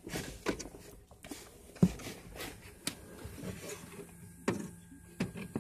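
Irregular clicks, knocks and light rustling of hands and plastic as a code reader is plugged into the truck's diagnostic connector under the dash; the sharpest knock comes about two seconds in, with a few more near the end.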